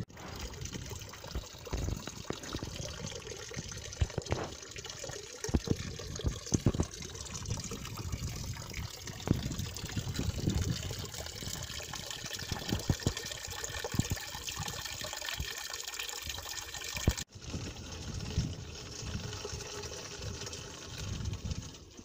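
Spring water pouring steadily from a stone fountain's spout and splashing into the pool of the stone trough below. The sound cuts off for an instant about seventeen seconds in, then the pouring runs on.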